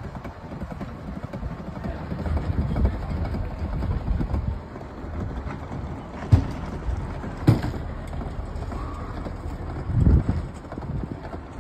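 Footsteps on pavement while walking around a parked pickup, with low rumbling on the microphone. Two sharp clicks come about six and seven and a half seconds in, and a heavier low thump comes near the end.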